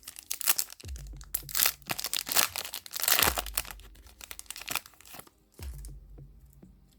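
Foil Yu-Gi-Oh booster pack being torn open and crinkled by hand: a run of sharp rips and crackles, loudest about three seconds in, then quieter handling.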